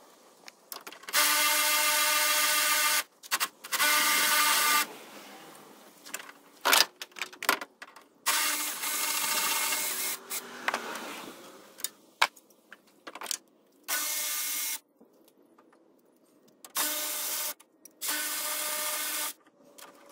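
Cordless power tool spinning bolts out in a series of short runs, about six bursts of a steady whine, each one to two seconds long and cutting off abruptly, with a few metal clicks and clanks of parts being handled in between.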